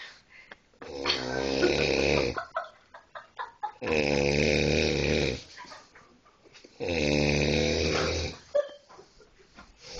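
A man snoring loudly in his sleep: three long snores about three seconds apart, each held for a second and a half with a voice-like pitch, almost like singing.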